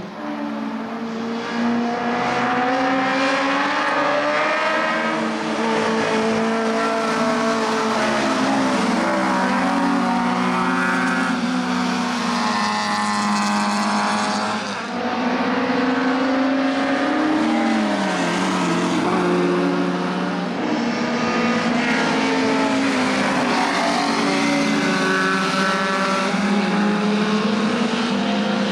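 Small 1300 cc touring-car engines (Lada, Samara and Zastava racers) running hard past on a wet track, several at once, their notes rising and falling as the drivers shift gears and lift off.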